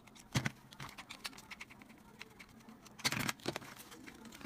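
Plastic clicks and knocks as a toy train's plastic body is unscrewed and pulled apart: a sharp click about half a second in, scattered light ticks, then a cluster of plastic clatter about three seconds in as the shell comes off its base.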